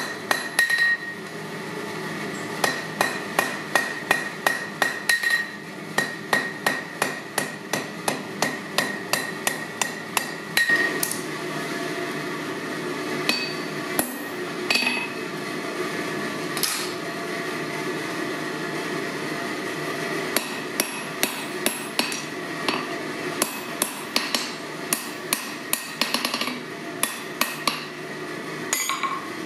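A hand hammer strikes hot steel on an anvil in runs of quick blows, about two or three a second, and each blow rings the anvil. There are fewer blows in the middle stretch, and a steady hum runs underneath.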